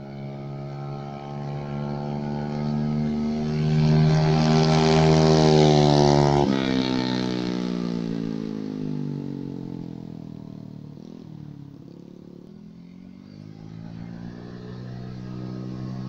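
Yamaha Mio Sporty scooter, bored up to 130cc on standard valves with an RX-King carburettor, ridden past at full throttle: its engine note climbs and grows louder as it comes, drops sharply in pitch about six and a half seconds in as it goes by, and fades away. Near the end it is heard coming back, rising and growing louder again.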